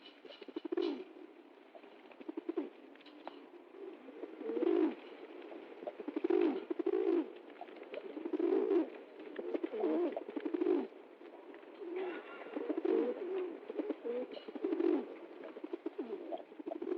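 Pigeon cooing, a run of low throaty coos repeated every second or two.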